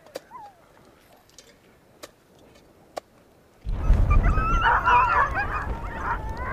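A team of sled dogs howling and whining together, several wavering voices at once. They start suddenly about three and a half seconds in, over a heavy low rumble. Before that there are only a few faint clicks.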